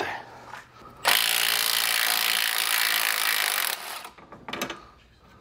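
Cordless Milwaukee M12 Fuel impact wrench running for about three seconds, breaking loose and backing out a Loctited 18 mm strut-to-knuckle bolt; a short tool noise follows.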